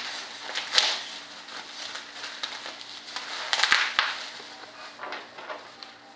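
Clear plastic packaging crinkling and rustling as it is handled, with louder crinkles just under a second in and again a little past halfway.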